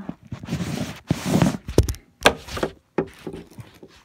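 Handling noise of a phone being moved about: rustling with a few sharp knocks, the loudest about two and a quarter seconds in.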